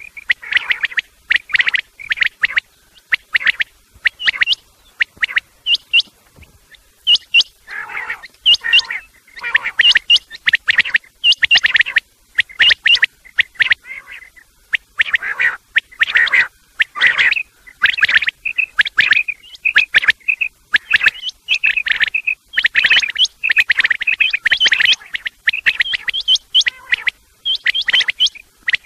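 Common quail calls used as a hunting lure to draw quail in: loud, short chirping notes repeated in quick clusters, with brief gaps between them.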